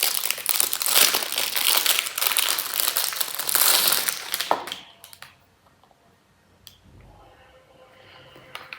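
Packaging crinkling and rustling as a lamp's remote control is unwrapped, for about four and a half seconds, then stopping, leaving a few faint clicks.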